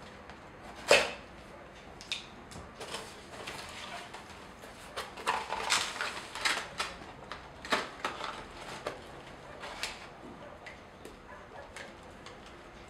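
Cardboard box being opened by hand: a sharp scrape of scissors cutting the packing tape about a second in, then scattered scrapes, rustles and knocks as the flaps are folded back and the unit inside is handled.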